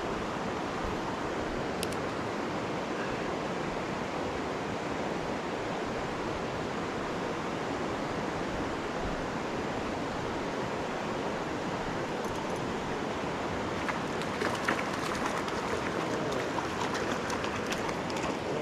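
Steady rush of flowing river water. A few light clicks come in over the last few seconds.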